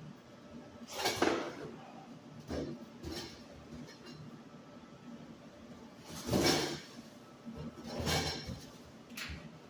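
Six short bangs, each about half a second long, at uneven intervals; the loudest comes about six seconds in.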